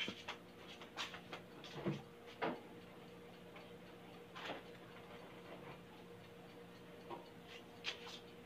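Faint steady hum with a handful of light clicks and knocks at irregular intervals.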